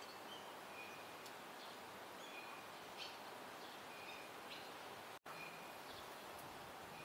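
Faint short, high bird chirps repeating every half second or so over a steady outdoor hiss. The sound cuts out for an instant about five seconds in.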